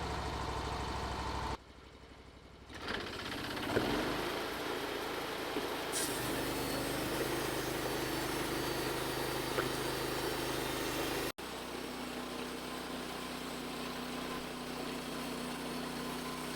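Engine of a Woodland Mills HM136MAX portable band sawmill running steadily. About two seconds in the sound drops away briefly and comes back with a sweep in pitch before settling, and it cuts out for an instant near eleven seconds.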